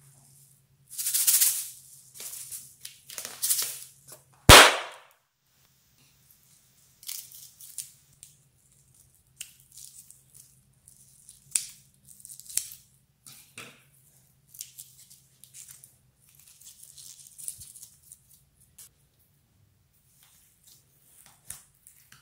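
Close-up handling of a rubber balloon: rubbery rustles and hisses, then a single sharp, loud pop about four and a half seconds in. Scattered small snips and crackles follow as the limp balloon is cut open with scissors.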